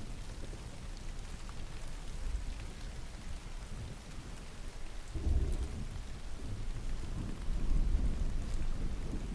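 Steady rain with a low rumble of thunder that swells about five seconds in and again near the end.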